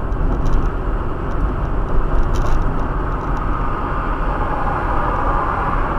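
Steady engine and road noise of a moving car, a dense low rumble at an even level, with a few faint ticks.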